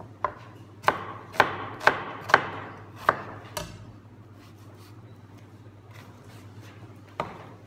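Chef's knife chopping an onion on a plastic chopping board: about seven sharp knocks roughly half a second apart, then a few seconds of quieter slicing with faint ticks, and another knock near the end.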